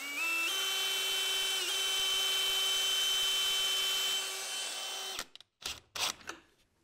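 DeWalt 20V cordless drill spinning up and running steadily for about five seconds, driving a thin wire probe down through the floor beside the trim, then stopping. A few light knocks follow.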